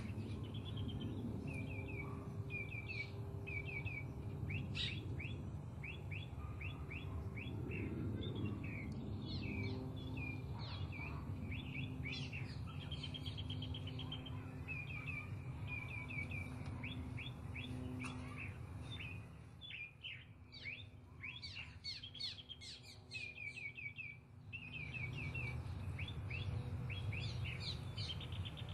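Small birds chirping in short, quickly repeated notes, over a low steady rumble of background ambience.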